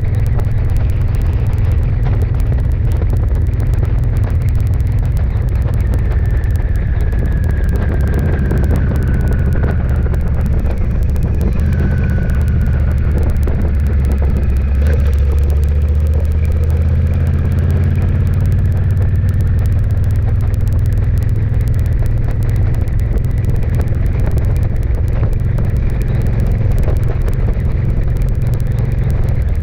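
Steady low rumble of a vehicle driving along a road, picked up by a camera mounted on the vehicle. A faint high whine slides down in pitch twice near the middle.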